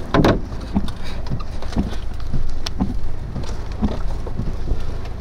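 Steady low rumble of wind buffeting a stopped vehicle, with irregular knocks and taps on the vehicle every half second or so.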